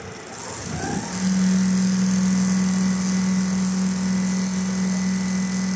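Richpeace automatic sewing machine with a 360° rotating head running through heavy winter-jacket material: a steady machine hum with a high whine above it, coming up to full level about a second in and then holding even.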